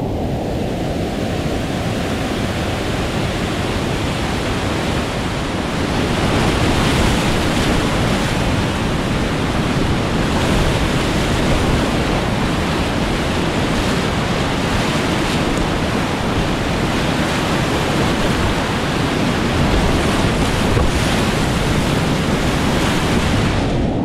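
Whitewater of a steep mountain creek rushing as a continuous dense hiss, getting louder and brighter about six seconds in.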